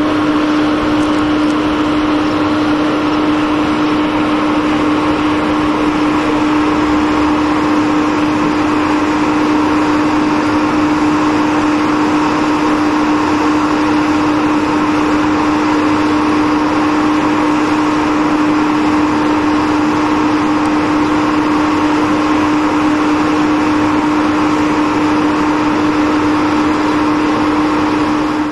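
A steady, loud hum: one unwavering tone over an even hiss, with no change from start to end, cutting off suddenly at the end.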